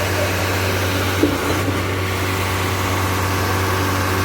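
Engine of concrete-placing machinery running steadily with a deep hum, and a short knock about a second in.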